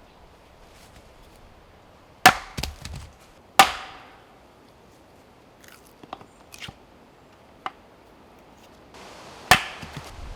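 Firewood being chopped: two sharp chops about a second apart, a few lighter knocks, then another chop near the end.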